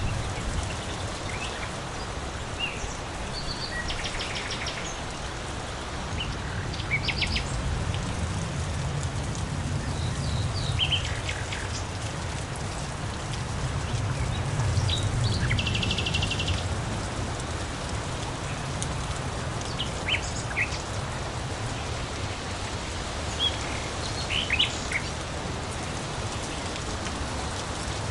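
Steady rain with several small birds chirping and giving short rapid trills now and then over it. A low rumble swells under the rain in the middle.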